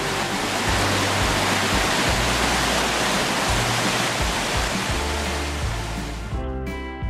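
Water rushing over rocks in a stream's rapids, a steady rush that swells up about half a second in and fades out about six seconds in, over background music with a steady bass.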